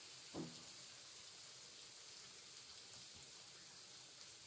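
Faint, steady sizzle and crackle of sliced onions frying in oil in a pan, with a light knock about half a second in.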